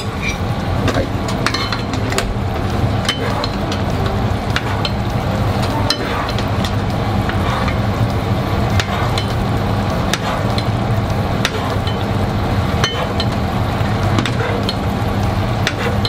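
Chicken thighs simmering in a soy-garlic sauce in a frying pan, a steady bubbling sizzle, with a metal spoon clicking against the pan many times at irregular intervals as the sauce is spooned over the meat.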